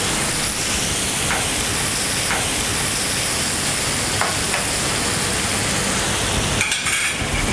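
Fish and seafood sauce sizzling steadily in a frying pan on a gas burner, with a few faint clicks and a brief clatter near the end.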